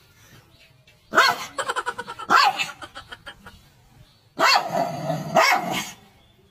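Dog growling and barking at its own reflection in a mirror, in two loud outbursts. The first starts about a second in with a rapid rattling growl; the second comes about four and a half seconds in and lasts over a second.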